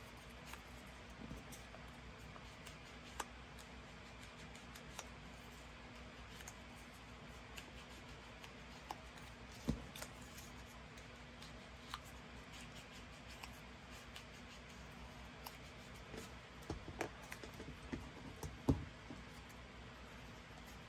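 Faint handling of paper and craft tools on a work surface: scattered soft clicks and taps, a sharper one about ten seconds in and a cluster of louder taps near the end.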